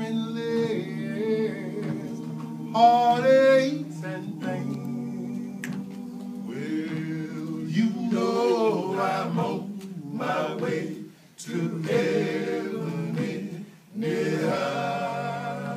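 Male gospel a cappella group singing in close harmony, six voices with no instruments: a lead voice moves over sustained chords from the baritones and bass. The singing breaks off briefly twice in the second half.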